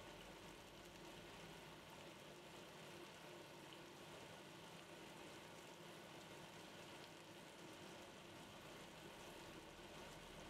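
Beef steaks sizzling faintly in a hot ridged grill pan, a steady soft crackle.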